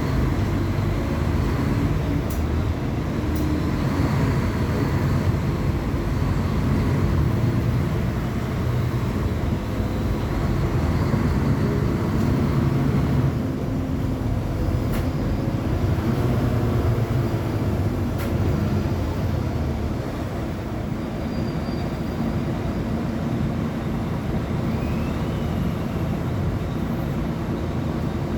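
Diesel engine of a Mercedes-Benz O500UA Bluetec 6 articulated bus running, a steady low drone that rises and falls slightly in pitch.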